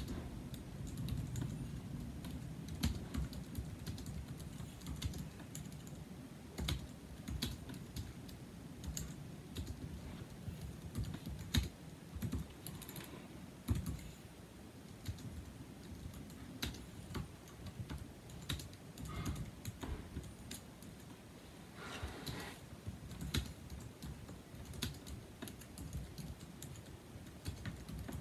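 Continuous typing on a 2007 Apple aluminium keyboard with numeric keypad (A1243). Its low-profile scissor-switch keys make quick, short clicks at an uneven rhythm.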